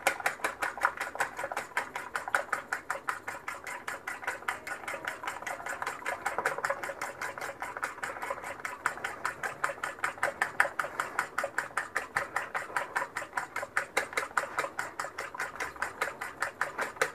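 Fork beating two eggs and a little milk in a ceramic bowl, tapping against the bowl in a rapid, steady rhythm of about five strokes a second.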